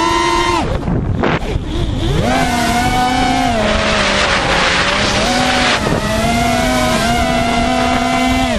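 FPV quadcopter's brushless motors and propellers whining, the pitch falling as the throttle is cut about a second in and climbing back a second later, then held fairly steady with small wobbles. Wind rushes over the microphone partway through, and the pitch drops again at the very end.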